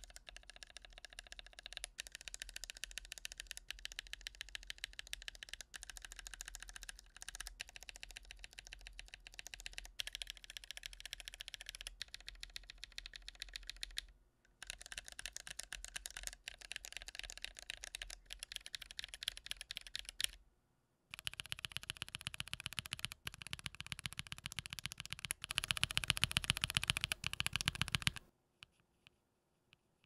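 Akko POM mechanical keyboard switches, stock and lubed, typed on rapidly: dense runs of key clicks in short back-to-back clips, with brief breaks about 14 and 21 seconds in. The last stretch is louder and stops suddenly about two seconds before the end.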